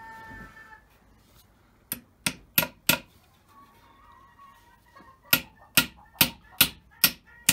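Hammer driving a small nail into a thin wooden slat: four quick taps about two seconds in, then a steady run of strikes, a little over two a second, from about five seconds in.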